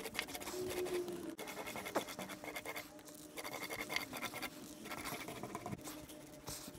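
Small paint roller being rolled through wet marine paint over a fibreglass surfboard: a soft, sticky scratching that comes in strokes with short dips between them.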